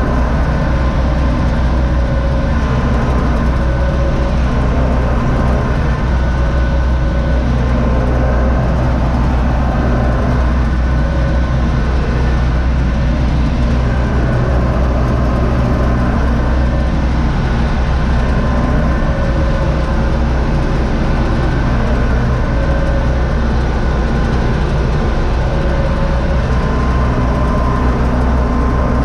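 Cab drone of a UTB U650 tractor's four-cylinder diesel engine running steadily under load, mixed with the steady hum of the PTO-driven Zmaj Zemun 223 corn picker it is pulling through the maize.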